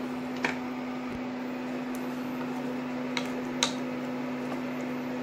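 Steady low hum with a constant hiss, broken by a few faint short clicks. This is kitchen room tone while a pan of gravy simmers on the gas stove.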